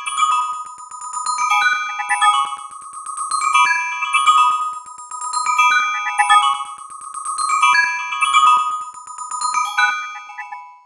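Nokia N70 mobile phone ringtone playing: a marimba-like melody of quick notes that repeats a short phrase about every two seconds, then stops at the very end.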